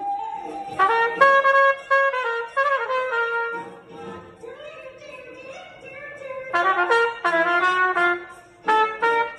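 Solo trumpet playing a melody: loud phrases of stepped notes, with a softer stretch in the middle.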